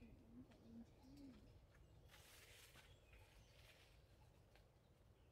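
Faint cooing of a dove: three short, low coos in the first second and a half, followed by a brief soft hiss about two seconds in.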